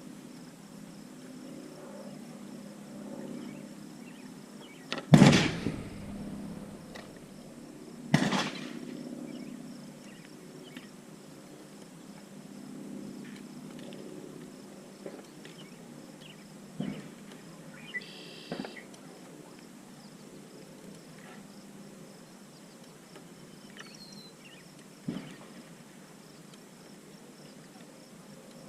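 Two loud, sharp gunshot reports about three seconds apart, each trailing off briefly, followed by a few lighter clicks and knocks of handled gear, over steady chirring of crickets.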